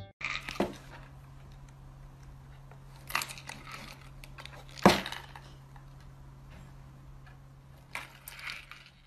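A few sharp knocks and clatters over a steady low hum, the loudest about five seconds in.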